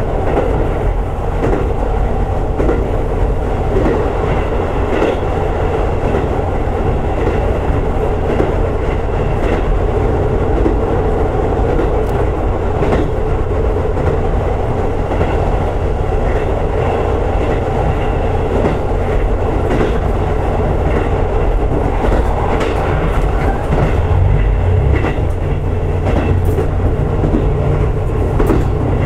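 Diesel railcar running along the line, heard from on board: a steady rumble of engine and wheels on rail, with scattered clicks of the wheels passing over rail joints.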